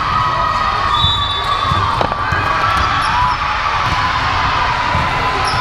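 Volleyball gym din: crowd noise, sneakers squeaking on the court floor and balls thudding, with one sharp hit about two seconds in.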